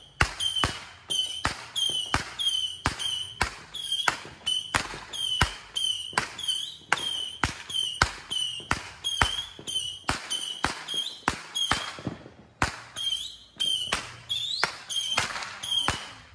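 A steady series of sharp knocks, a little over two a second, each followed by a short high ringing ping.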